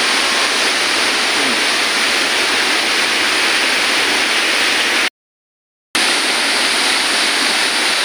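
Waterfall rushing over rocks, a steady loud roar of falling water. The sound cuts out completely for nearly a second about five seconds in, then resumes.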